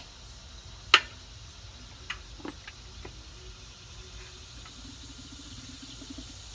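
Lid of a Char-Griller Akorn kamado grill being opened: a sharp click at the start, a louder knock about a second in, then a few lighter clicks as the domed lid swings up on its hinge.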